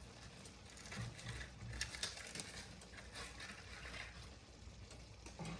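Faint scattered clicks and light rustling of hard taco shells being handled.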